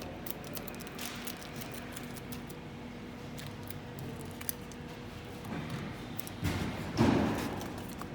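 Small metallic clicks and handling noises over a steady low hum, with a louder rustling knock about seven seconds in.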